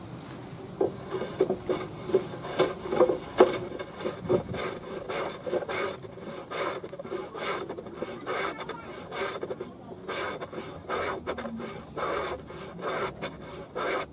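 Wooden hand plane shaving the edge of a board, quick repeated strokes of wood rasping, about two or three a second, starting about a second in.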